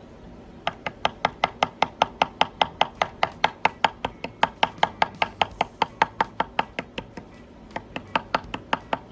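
A CRKT Fossil folding knife's blade scraped rapidly and repeatedly down a ferrocerium rod to throw sparks for a fire, about five short sharp strokes a second. The strokes stop briefly near the end, then a few more follow.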